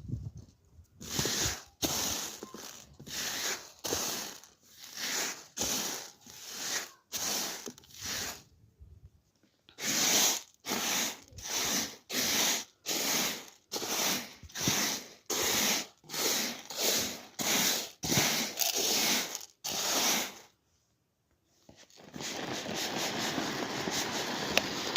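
Wheat grain being shaken by hand to clean it, giving a steady rhythm of dry swishes about one and a half a second. A short pause follows, then a steady hiss near the end.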